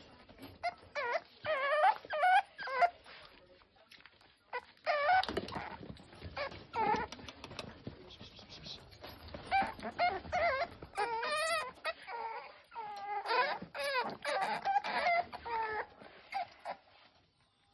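French bulldog puppies whining and whimpering: many short cries that bend up and down in pitch, coming in clusters with pauses between.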